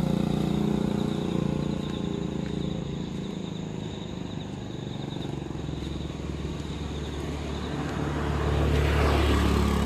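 Motorcycle engine running as the bike rides away uphill on a wet road, its hum fading over the first few seconds. Near the end a louder low rumble with hiss builds up.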